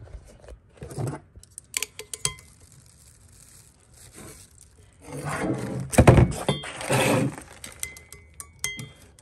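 Metal tools and parts clinking and scraping as they are handled on a workbench, with a heavier thunk about six seconds in.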